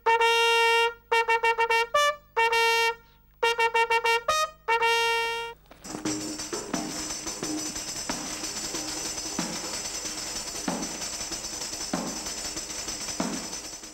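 A trumpet plays a call of short detached notes, mostly on one repeated pitch, stopping about five and a half seconds in. It is followed by a steady high-pitched shimmering rattle with a low beat every second or so.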